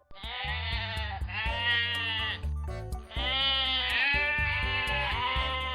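Sheep bleating: long bleats with a wavering pitch, broken by a short pause a little before the middle, over steady background music.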